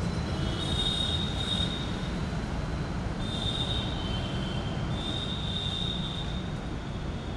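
Several drawn-out high squeals, each lasting about a second, over a constant low rumble.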